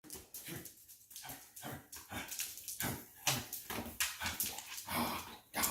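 Basset hound vocalizing during play in a rapid string of short calls, several a second.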